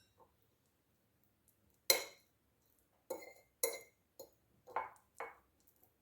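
A utensil clinking and knocking against a dish in about six sharp, separate strikes with a short ring, the sound of boiled garlic cloves being crushed in a bowl.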